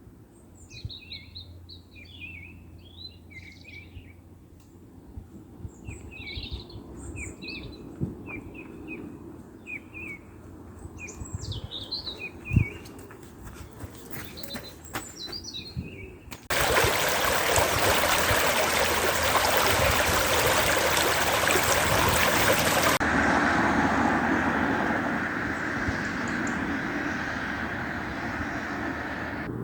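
Small birds chirping and singing for just over half the span, with a few soft clicks. Then it switches suddenly to a loud, steady rushing noise that eases a little about three-quarters of the way through.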